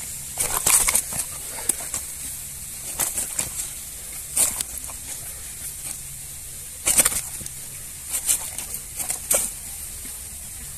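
A caught snakehead thrashing against dry grass and leaves while held down by hand: irregular short slaps and rustles in several clusters, over a steady high hiss.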